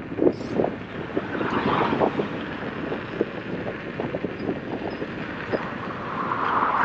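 Wind rushing over a helmet-mounted microphone on a moving motorcycle, an even rush with many small buffets, swelling louder near the end.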